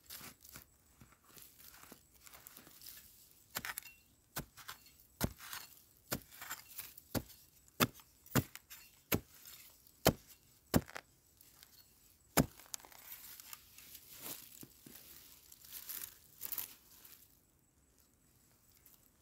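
A digging tool chopping into earth and roots to dig out a wild yam tuber: about a dozen sharp strikes, roughly one a second, with dry leaves and soil rustling and crackling between them. The strikes stop about twelve seconds in, and softer scraping and rustling follow.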